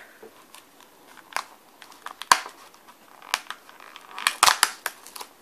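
Fingers tapping, scraping and picking at a cardboard advent calendar to open a door: scattered sharp clicks and crinkles, with the loudest cluster of crackling about four and a half seconds in.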